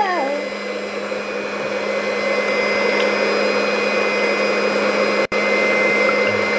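Electric hand whisk beating eggs and milk in a glass bowl. Its motor whine falls in pitch at the start, then it runs with a steady whirring, cutting out for an instant about five seconds in.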